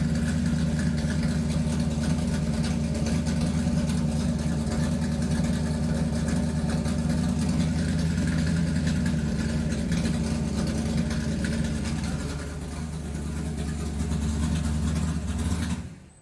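A vehicle motor running loudly and steadily with a deep, even hum. It eases off briefly about twelve seconds in, picks up again, then fades out quickly at the very end.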